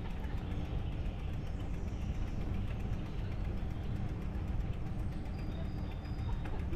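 Steady low rumble of riding a bicycle: wind and rolling noise on the rider's microphone, with no clear events standing out.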